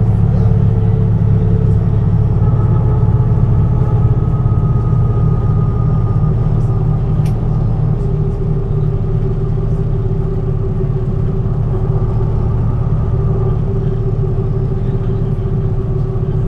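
MAN NG 313 articulated bus's six-cylinder diesel running under way: a steady low rumble with faint whining tones that drift slowly in pitch, easing off a little toward the end.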